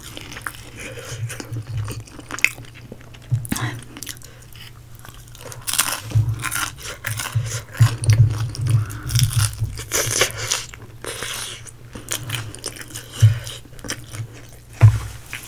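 Close-miked eating sounds: biting and chewing crispy fried chicken, with irregular crunching of the breaded skin that is heaviest in the middle. There is a single loud thump near the end.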